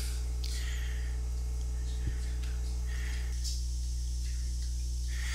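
Steady low electrical hum of a TIG welding setup running during a weld, with a faint hiss from the arc.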